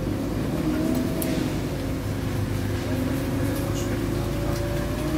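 A Wright StreetCar articulated bus on a Volvo B7LA chassis, heard from inside the cabin: its diesel engine and drivetrain run with a steady low rumble and a whine that slowly rises in pitch. Faint rattles come from the interior fittings.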